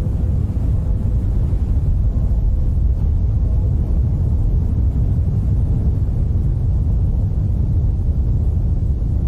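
Loud, steady low rumbling drone with a faint steady hum above it, without hits or breaks: the dark ambient sound bed of a horror animation.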